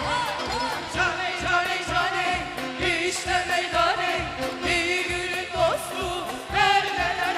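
Turkish folk-pop song: a singer's ornamented, sliding vocal lines over band accompaniment with a steady drum beat.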